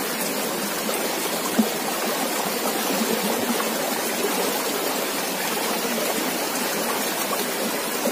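Shallow, rocky river flowing over small rapids: a steady rush of water.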